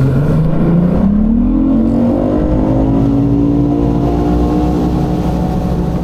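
Outboard motor on a bass boat throttling up, its pitch climbing over the first few seconds, then holding steady at running speed.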